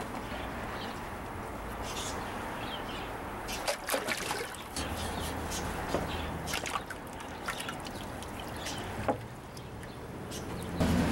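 Water sloshing and trickling in a plastic tub of lye solution as cast iron skillets are lowered into it, with a few light clicks of iron against the tub.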